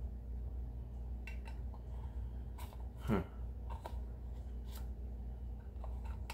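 Small clicks and scrapes of a hair-clay jar being handled and its lid twisted, over a steady low hum. A brief, louder sound that falls in pitch comes about three seconds in.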